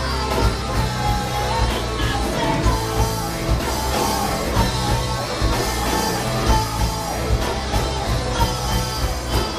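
Live rock band playing: drums keep a steady beat under bass and electric guitar, with a melody line bending above.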